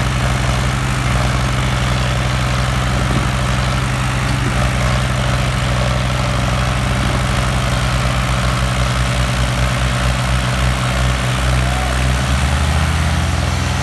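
New Holland 3630 tractor's diesel engine running under heavy load as it pulls against another tractor in a tug of war. From about eight seconds in, the low drone starts to pulse, and its pitch shifts near the end.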